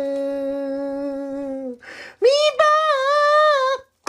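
A voice singing two long held notes of a meme song: a low steady note lasting almost two seconds, then after a brief break a higher note with a slight wobble, which stops shortly before the end.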